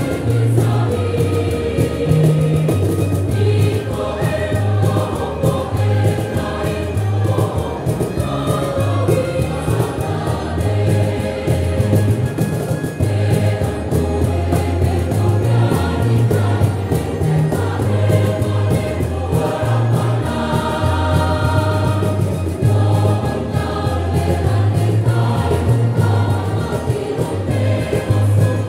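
A church choir singing.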